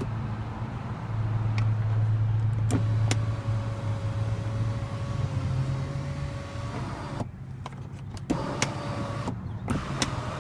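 Electric moonroof motor of a 2014 Mercedes-Benz E350 running as the glass panel slides, a steady whine with a few clicks for about six seconds that stops abruptly about seven seconds in. A shorter whir of the same motor follows near the end.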